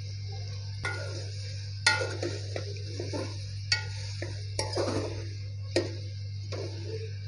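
Metal spoon knocking and scraping against a metal cooking pot while stirring chunks of raw potato in oil and masala. There are several sharp clicks, the loudest about two seconds in, over a steady hiss and low hum.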